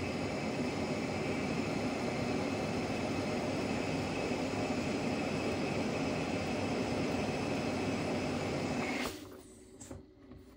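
Philips Respironics System One REMstar Pro CPAP machine blowing air: a steady rush of air with faint whining tones, dropping off sharply about nine seconds in, followed by a couple of light clicks.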